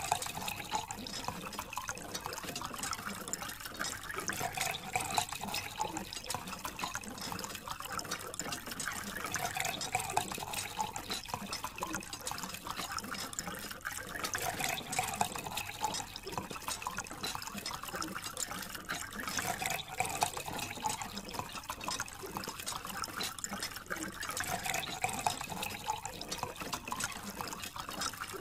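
A thin stream of water from a small tube splashing and trickling steadily onto toy vehicles and into the puddle around them, washing off wet sand.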